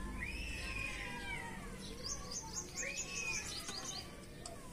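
A cat meowing twice: one long drawn-out meow, then a shorter one about three seconds in. In between, a small bird gives a quick run of high chirps.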